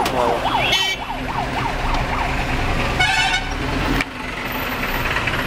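A rapidly warbling siren fading out over the first two seconds over a bed of road traffic and engine noise heard from inside a car, with a short horn toot about a second in and a louder horn blast about three seconds in. The sound cuts abruptly at about four seconds to steady traffic and engine noise.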